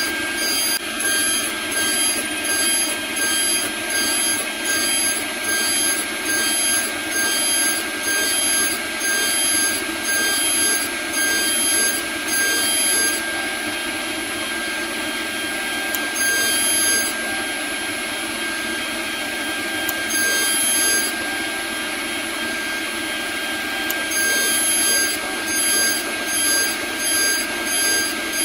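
CNC router spindle whining steadily while its end mill cuts Delrin plastic. The cutting noise swells and fades roughly once a second as the tool sweeps back and forth, and holds steadier for a few seconds at a time in the middle.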